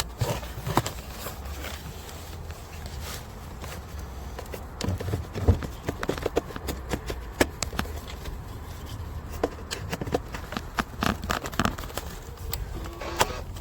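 Handling noises as jump-starter cable clamps are connected to a dead car battery: a run of irregular clicks, knocks and rattles, busiest in the second half, over a steady low rumble.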